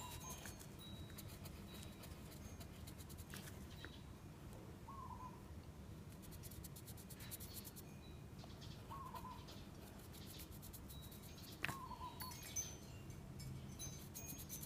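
Faint bird calls: a short call repeated about every four seconds, with brief high chirps between, over quiet room tone. Light scratching of colouring on paper runs underneath.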